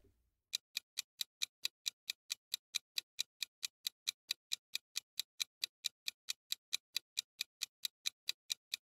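Clock-ticking sound effect counting down the answer time: quick, even ticks, a little over four a second, starting about half a second in.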